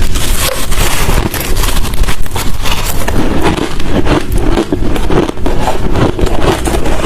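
Close-miked chewing of hard crushed ice: dense, loud crunching and crackling as the chunks break between the teeth.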